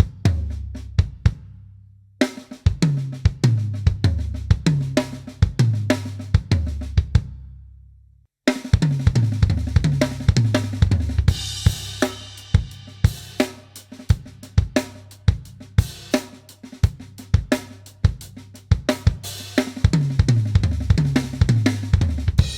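Drum kit playing a fill over and over, with snare strokes, kick drum, low ringing drums and cymbals, worked around left-hand ghost notes on the snare. The playing stops briefly about two seconds in and again about eight seconds in, and a cymbal washes over it for a couple of seconds around the eleven-second mark.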